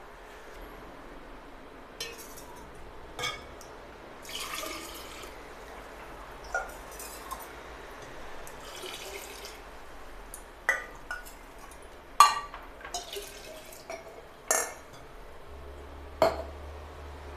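Sherbet being scooped from a glass bowl with a small glass cup and poured into a glass jar: several short pours of liquid trickling and splashing, with about six sharp clinks of glass against glass, the loudest about twelve seconds in.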